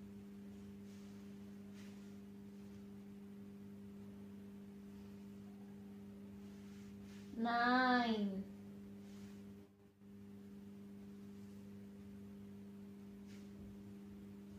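Steady low electrical hum made of a few fixed tones. A single drawn-out spoken or sung word cuts in about halfway through. A brief dropout follows a couple of seconds later.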